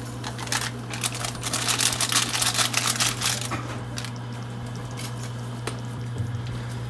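Foil sachet of soup-mix powder crinkling and rustling in the hand as it is shaken and emptied over a pot: a dense run of small crackles that stops about three and a half seconds in. A steady low hum runs beneath.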